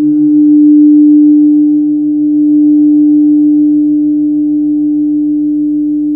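Large Tibetan gong ringing on in a sustained low hum with a few higher overtones. Its lower tone pulses in a slow beat. The sound swells about a second in and then fades slowly.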